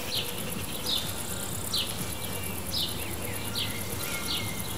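Insects in a flowering lavender field: a steady high trill, with a short falling chirp repeated about once a second.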